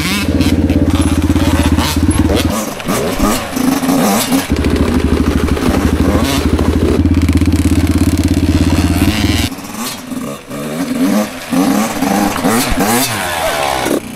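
Dirt bike engines being ridden, their note revving up and down with the throttle and dropping off a little after about nine seconds.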